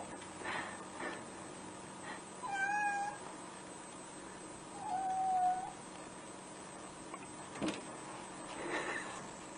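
Two short animal calls, each holding a fairly steady pitch, about two seconds apart, and a sharp click near the end.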